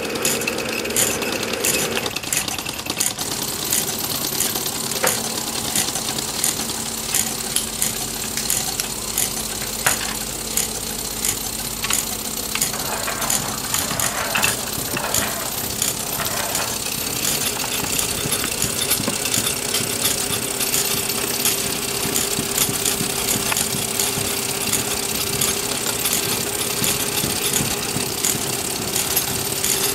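Small model engines and mechanisms running together: a steady mechanical hum overlaid with many quick clicks and rattles.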